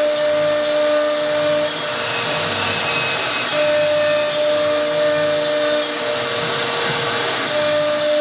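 1325 CNC wood router cutting wood: a steady noisy spindle and cutter sound, with the axis drive motors humming in tones that start and stop every couple of seconds as the machine moves.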